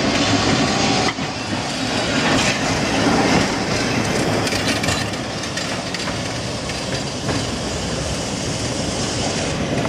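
Tatra tram rolling along street rails and passing close by, its wheels rumbling and clacking over the track.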